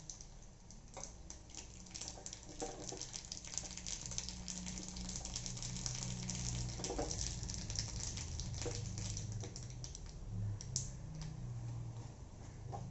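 Mustard seeds and split urad dal frying in hot oil in a small kadai, crackling with irregular small pops as the seeds splutter.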